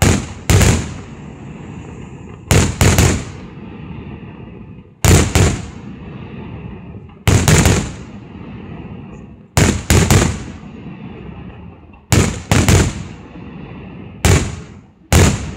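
Aerial firework shells bursting in a display: loud sharp bangs, often two in quick succession, about every two to two and a half seconds, each trailing off into echo over a steady low rumble.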